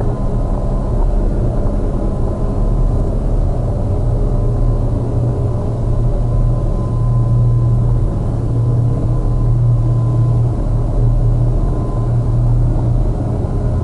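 A dense, heavy low electronic drone, processed through effects pedals and digital manipulation, that swells and ebbs slightly, with a thin steady high tone held above it.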